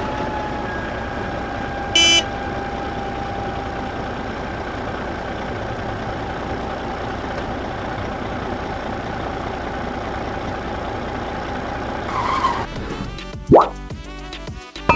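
A small motor running steadily with a constant whine, with a short, loud horn-like beep about two seconds in; music takes over near the end.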